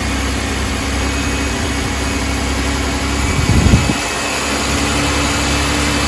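GM 3800 Series III V6 idling steadily, running properly on a newly fitted MAP sensor, with a brief louder surge about three and a half seconds in.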